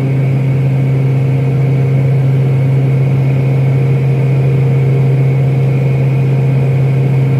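Turboprop airliner's engines and propellers droning steadily, heard from inside the passenger cabin: a strong, even low hum with fainter steady higher tones above it.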